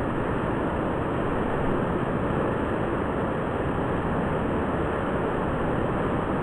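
Waterfall pouring down a rock chute into its pool, a steady, even rushing of water.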